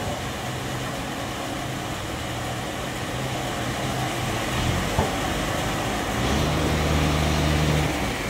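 Sawmill band saw running and cutting through a log, a steady mechanical din over a low motor hum. A louder, steadier engine hum comes in about six seconds in and stops just before the end.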